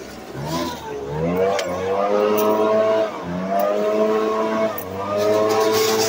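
Gas leaf blower's two-stroke engine being throttled up and down. Its pitch sags and climbs back about a second in, then holds at high speed with brief dips about three and five seconds in.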